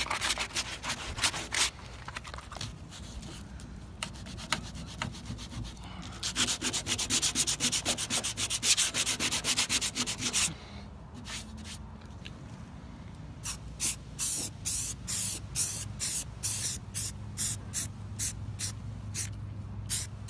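Sandpaper on cured body filler over a patched steel panel of a 1965 Jeep CJ5, sanding it flat for paint: rapid back-and-forth scratchy strokes in two spells, the second one the loudest, then slower, separate strokes about two a second in the last third.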